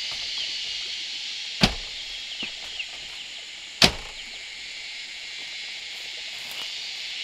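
Sharp knocks, like blows on wood, the two loudest about two seconds apart with a couple of fainter ones between, over a steady high-pitched background drone.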